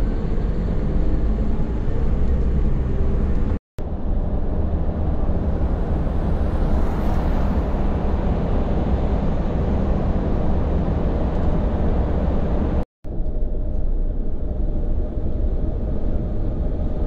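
Hino heavy tractor-trailer's diesel engine and road noise heard inside the cab while driving: a steady low rumble, cut by two brief drop-outs to silence, about four seconds in and again about thirteen seconds in.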